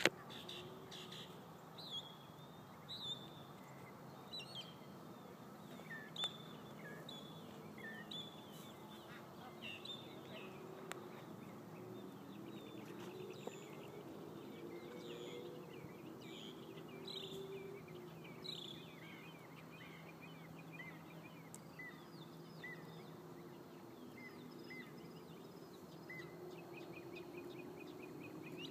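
Outdoor farmyard ambience: many short bird chirps and calls scattered throughout, over a steady low background noise.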